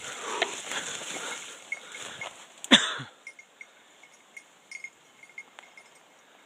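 Dense brush rustling and snapping for the first few seconds. Then one loud sharp knock, and after it a quiet stretch with faint high ticking.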